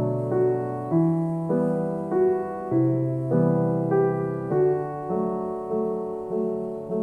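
Background solo piano music: a gentle melody with a steady pulse of struck notes and chords, a little under two a second.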